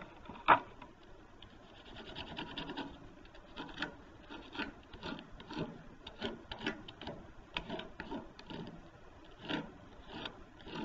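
The side of a wax crayon rubbed back and forth over paper laid on a ridged plastic texture plate, a rasping stroke about twice a second, making a crayon rubbing. A single sharp knock about half a second in.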